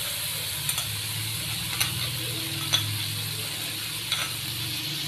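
A slotted metal spoon clinks and scrapes a few times as it scoops solid desi ghee from a glass bowl into an aluminium karahi. Under it, a faint steady sizzle comes from the ghee melting in the hot pan.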